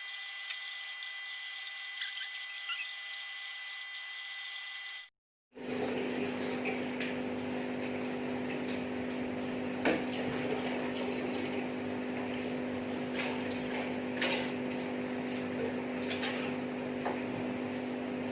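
A steady mechanical hum with a few sharp clicks. The sound cuts out completely for about half a second, five seconds in, then comes back as a lower, steadier hum.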